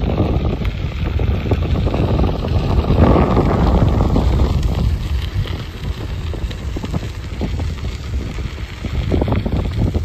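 Wind buffeting the microphone of a camera on a moving bicycle: a dense low rumble that swells about three to four seconds in, with scattered small knocks from bumps in the path.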